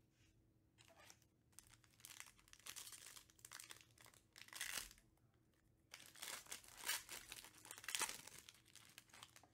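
Foil wrapper of a Panini Prizm trading-card pack crinkling and tearing as it is pulled from the box and ripped open, in several uneven bursts of rustling.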